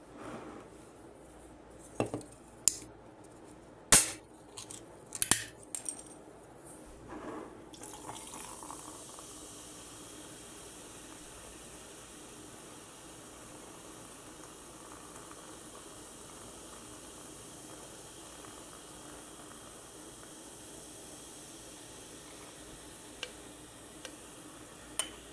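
A few sharp clicks and knocks of a bottle and glass being handled, then 7Up lemon-lime soda in a glass giving a steady fizzing hiss of carbonation for the rest of the time, with a couple of faint ticks near the end.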